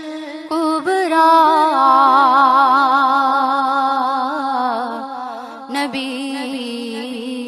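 A woman singing a naat, drawing out the word "Kubra" in a long held note with strong vibrato.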